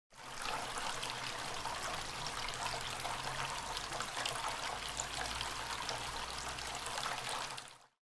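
Small tabletop water fountain running: water trickling and splashing steadily as it spills from one little clay pot into the next and down into the basin. A faint low hum sits underneath.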